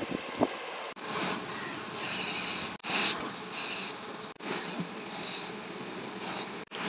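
Aerosol spray can hissing in several short bursts as it coats a wooden knife handle, the longest about two seconds in. A few light taps come just at the start.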